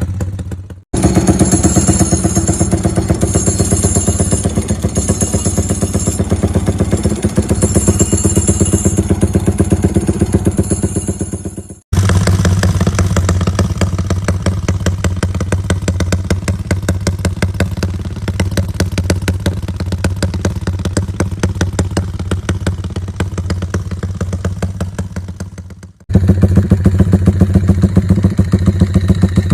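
Modified Yamaha Y15ZR motorcycle's single-cylinder four-stroke engine running steadily near idle through an aftermarket exhaust. The clip switches abruptly to a different bike three times, at about 1, 12 and 26 seconds; the last is the loudest.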